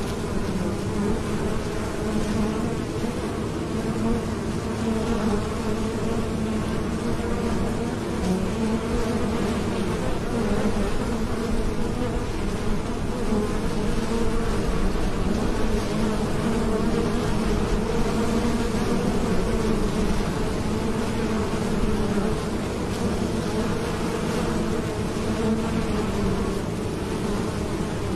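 A crowd of honey bees buzzing at a hive entrance as they fly in and out: a steady, dense hum that wavers slightly.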